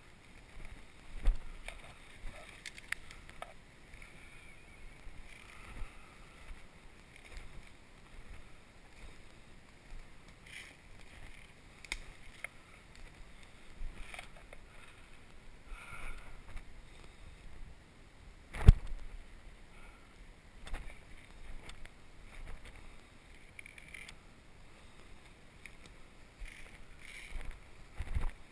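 Footsteps and rustling through leafy forest undergrowth, with scattered light clicks and one sharper knock about two-thirds of the way through.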